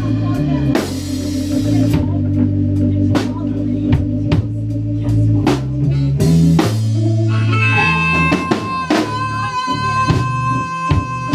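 Live blues band playing an instrumental stretch: electric guitar, electric bass and drum kit, with steady drum hits under moving bass notes. About two-thirds of the way through, a long high note comes in and is held.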